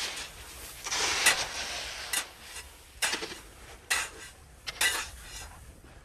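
Shovels scooping and scraping through heaped coarse sea salt, a string of irregular gritty crunches roughly a second apart as the salt is loaded onto a wooden hand-barrow.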